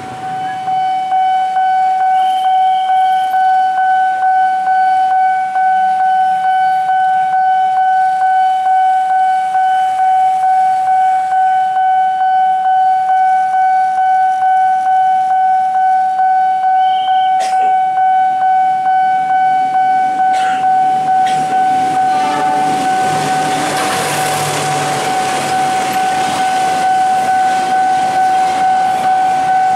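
Railway level-crossing warning alarm sounding a steady, high ringing tone that pulses regularly. About three quarters of the way through, the noise of a passing freight train swells up beneath it.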